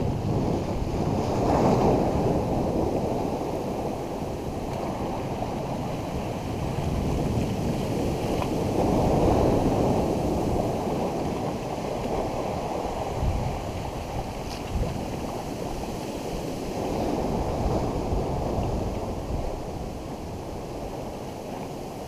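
Ocean swell surging into a rocky pool, foaming white water churning and rushing, muffled and dull. It builds and eases in three surges, about every seven or eight seconds.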